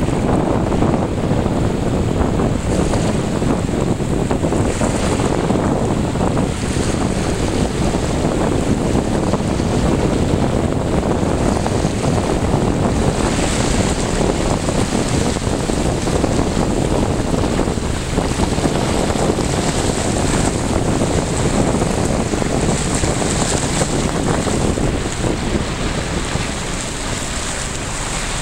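Steady rushing noise of wind on the microphone, mixed with the wash of moving water in swirling tidal currents.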